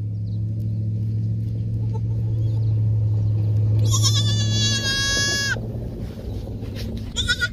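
A newborn Savanna goat kid gives one high, quavering bleat about four seconds in, lasting under two seconds, with a shorter call near the end. A steady low hum runs underneath.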